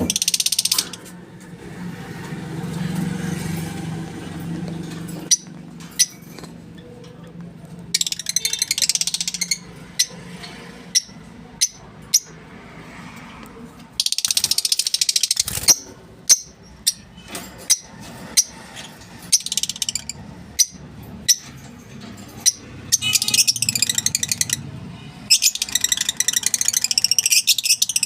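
Lovebirds and other small parrots in an aviary chattering and screeching in loud bursts of several seconds, with short sharp chirps in between.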